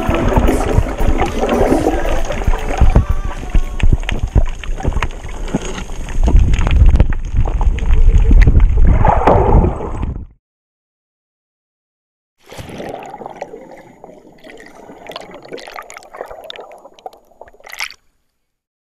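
Water sloshing and gurgling over an underwater GoPro HERO Session's microphone, loud and full of crackling clicks, cutting off abruptly about ten seconds in. After two seconds of silence a much fainter noisy stretch with scattered clicks follows.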